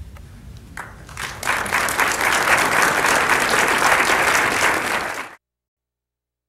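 Audience applauding: a few claps about a second in, swelling into full applause that cuts off suddenly near the end.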